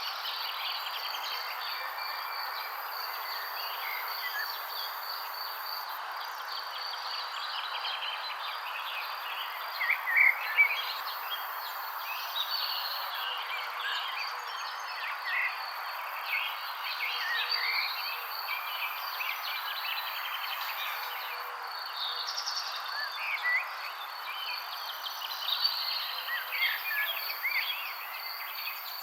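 Songbirds chirping and twittering in short scattered calls over a steady insect trill, with a few louder chirps about ten seconds in.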